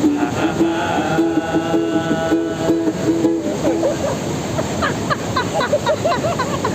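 Nepali song playing as background music: held instrumental notes for the first few seconds, then a wavering, ornamented melody line for the rest.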